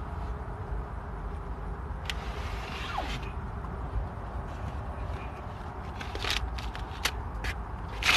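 Aerosol spray paint can hissing in one burst of about a second, about two seconds in, then several sharp clicks and taps near the end as the can is handled, over a steady low rumble.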